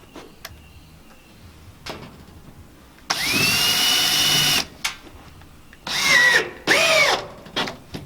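Cordless drill driving screws into metal barn siding: one motor run of about a second and a half that spins up to a steady whine, then two short trigger pulses that rise and fall in pitch, with a few light clicks between.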